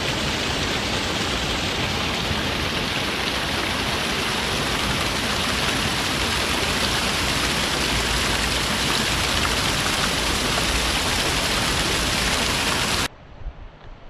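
Small cascade of a woodland stream tumbling down a mossy bank, heard close up: a loud, steady rush of splashing water that cuts off abruptly about a second before the end.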